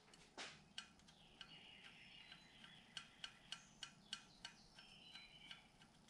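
Faint, irregular light metallic clicks and ticks, a few a second, with some thin high squeaks between them, from hands and tools working loose a lock nut on the cam chain tensioner.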